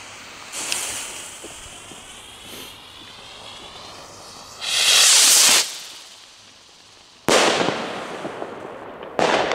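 Explode Swirl firework rocket: its fuse fizzes, then the rocket lifts off with a loud whoosh about five seconds in. It bursts with a sharp bang a couple of seconds later, and a second bang follows near the end.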